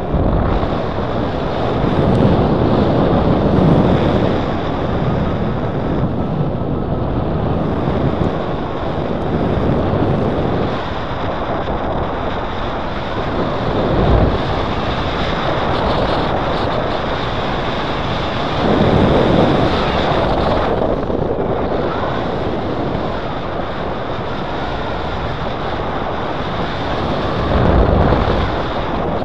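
Wind rushing over the camera microphone of a paraglider in flight, a steady noise that swells in gusts a few times.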